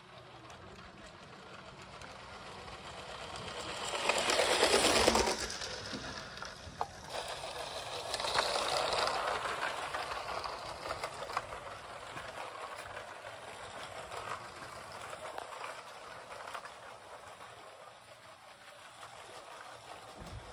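Lego high-speed passenger train (set 60051) running on plastic Lego track, its small electric train motor whirring with the wheels on the rails. The sound swells loudest about four to five seconds in, and again around eight to nine seconds, then fades back to a steady running sound.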